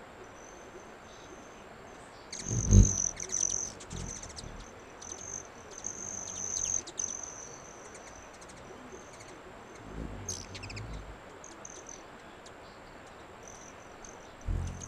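Hummingbirds at a feeder. High, thin buzzing trills and rapid chip notes come and go. Short low wing hums sound as birds fly in close, loudest about three seconds in and again just before the end.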